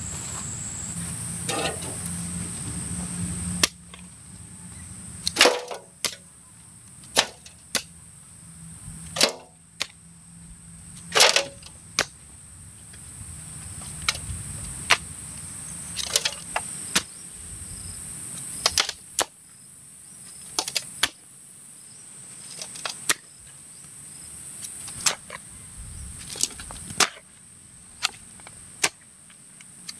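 Steady high-pitched insect chorus with sharp knocks every one to two seconds. A low hum underneath stops a few seconds in.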